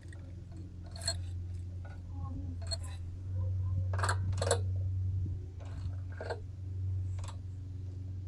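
Light metal clicks and scrapes of a feeler gauge and hand tools being worked at the rocker arm while setting the valve lash on a small lawnmower engine, with a louder pair of clicks about four seconds in, over a steady low hum.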